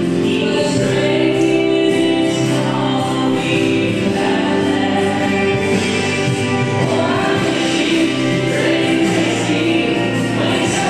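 Recorded country waltz song with singing, playing steadily.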